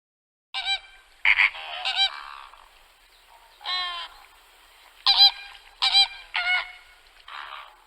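Flamingos honking: about eight short calls in irregular bursts, some in quick pairs.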